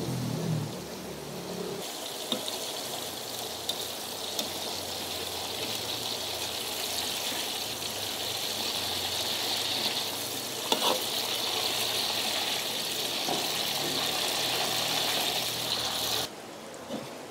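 Vegetables (green chillies, tomatoes, shallots and garlic) sizzling steadily in hot oil in a wok, with a few short knocks of a metal ladle against the pan. The sizzle drops away about a second before the end.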